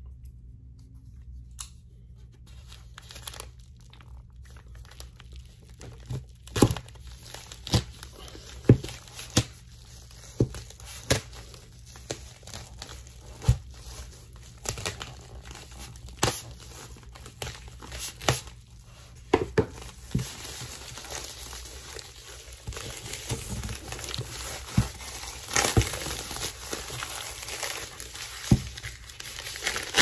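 A plastic Priority Mail poly mailer being cut into with a small folding knife and torn open by hand: crinkling and tearing plastic with scattered sharp clicks and taps, the rustling getting busier and louder in the second half.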